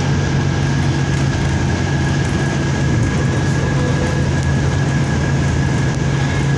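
Steady cabin noise inside a moving bus rapid transit bus: a constant low hum and rumble of the drive and road, with a thin steady high tone over it.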